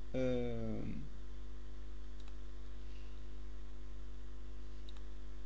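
Steady low electrical mains hum on the recording, with two faint computer mouse clicks, about two seconds apart, about 2 and 5 seconds in. A brief vocal hum falling in pitch comes in the first second.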